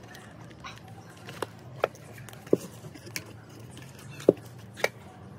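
Handling of a plastic fuel pump module: about six sharp clicks and taps of plastic parts knocking together, over a steady low hum.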